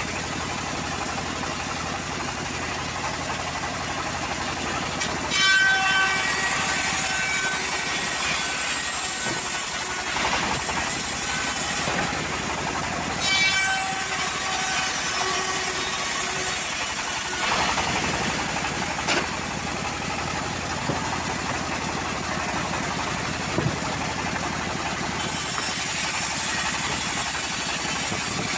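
Homemade band sawmill running with its blade ripping through teak, a steady loud sawing noise. It has brief high whines and louder moments about five and thirteen seconds in.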